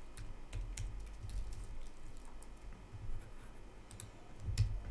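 Computer keyboard typing: scattered single keystrokes, with a louder cluster of clicks near the end.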